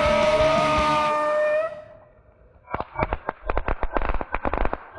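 Small firework rockets hissing with a steady whistle, which cut out suddenly under two seconds in; about a second later an irregular, rapid string of sharp crackling pops begins.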